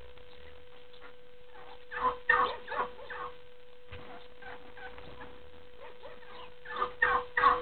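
Turkey gobbling: a cluster of quick rattling gobbles about two seconds in, and another near the end.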